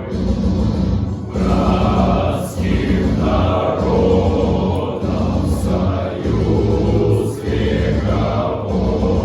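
Music: a male choir singing over an instrumental accompaniment.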